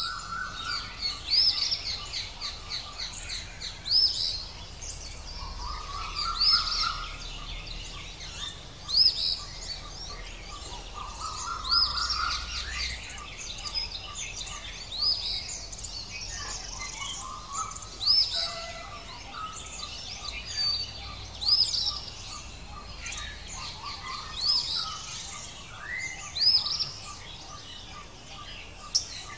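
Several birds calling and chirping: short, sharp high notes repeat every second or two, with lower rising calls every few seconds.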